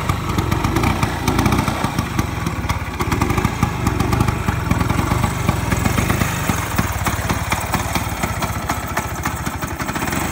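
Bajaj Priya scooter's two-stroke engine idling steadily just after being started.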